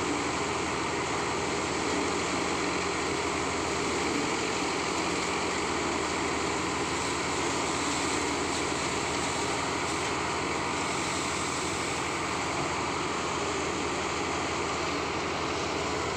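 Hamidi paddy thresher running steadily as paddy is threshed, its drum and blower fan giving a constant machine noise that does not change.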